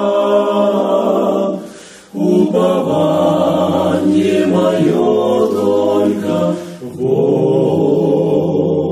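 Four-voice a cappella group of two men and two women singing a hymn in harmony, holding long chords. There is a short breath break about two seconds in, and a low male voice enters underneath about a second later.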